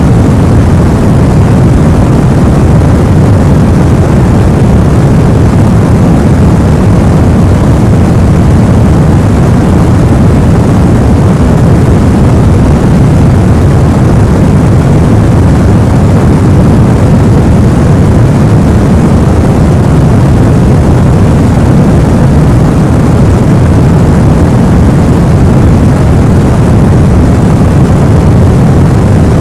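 Steady sleep noise track, a deep, even hiss with most of its weight in the low end, unchanging throughout.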